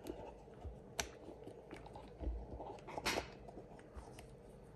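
Faint handling noises: scattered small clicks and knocks, a sharp click about a second in, and a brief rustle around three seconds in.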